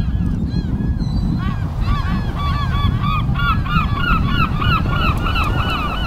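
A flock of black-headed gulls calling: many short, harsh, overlapping calls that grow denser about a second and a half in, over a steady low rumble.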